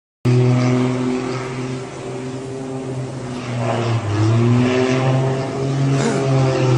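Small propeller plane's piston engine running loudly at a steady pitch, which dips and swells back up about four seconds in.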